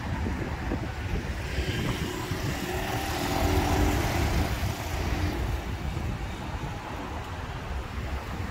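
Wind buffeting the microphone with a steady low rumble, while a passing vehicle swells up about two seconds in and fades away by about five and a half seconds.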